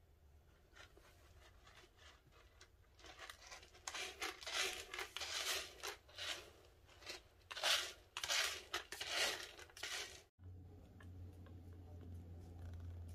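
A kitten scratching and digging in stick-shaped pellet cat litter to bury after using the litter box: a run of irregular crunching, rustling scrapes that starts a few seconds in and cuts off suddenly near the end.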